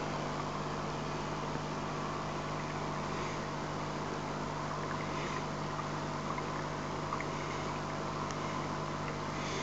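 Aquarium equipment running: a steady motor hum over a rushing hiss, unchanging throughout.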